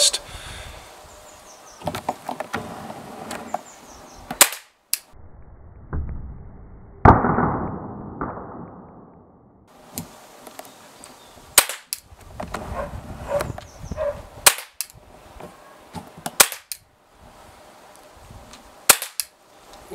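Glock 17 CO2 blowback pellet pistol firing single shots: a string of sharp pops at uneven spacing, some in quick pairs, with pauses of a second or more between them.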